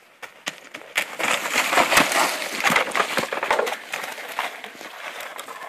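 A tackle ending in a crash into snow: about a second in, a loud burst of scuffling, crunching and knocks as two people and a plastic step stool go down, easing off over the next few seconds.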